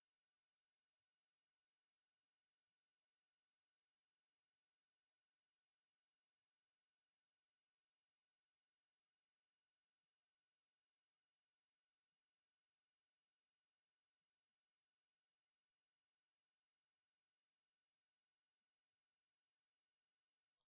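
A continuous, very high-pitched pure sine tone, played as an anti-mosquito sound meant to repel mosquitoes and midges. It holds one steady pitch and cuts off suddenly just before the end.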